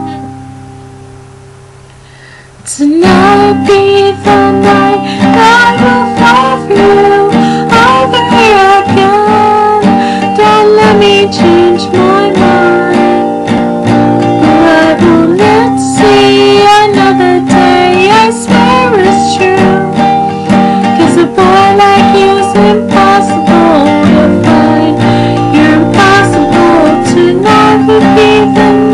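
Steel-string acoustic guitar strummed, with a woman singing over it. A chord rings out and fades for the first few seconds, then the strumming and singing start again.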